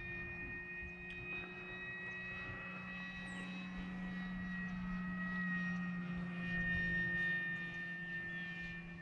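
Electric motor and propeller of a Flex Innovations RV8 G2 60E radio-controlled plane in flight: a steady whine of several held tones. It grows louder a little past the middle as the plane passes nearer, then eases.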